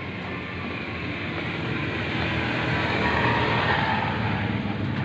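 Small engine of a motorised bicycle running steadily, growing louder about two seconds in.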